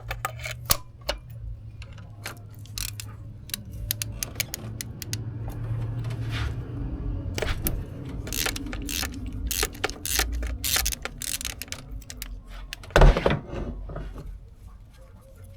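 Ratchet clicking as it turns a long extension and 16 mm spark plug socket, loosening a spark plug in the engine, with metal tool clicks and one loud knock about 13 seconds in.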